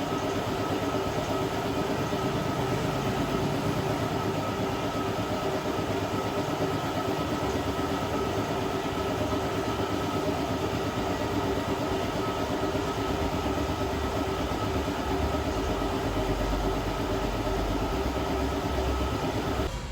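A small electric-motor tool running steadily with a constant whine over a dense whirring noise, cutting off suddenly near the end.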